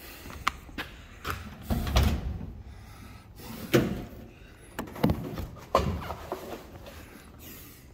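A series of irregular knocks and clunks, about eight in all, with the loudest around two seconds in and just before four seconds in.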